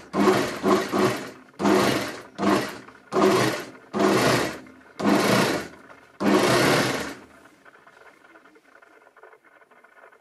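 Over-edge sewing machine (surjeteuse) stitching a seam in a sheepskin slipper, running in about seven short spurts with brief pauses between them and stopping about seven seconds in.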